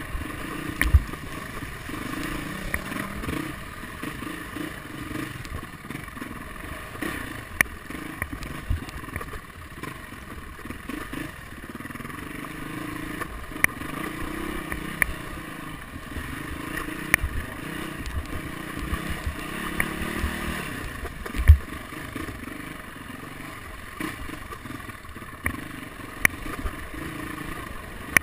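Dirt bike engine revving up and down as the bike is ridden over rough trail, with scattered knocks and clatter from bumps. A heavy thump comes about three-quarters of the way through.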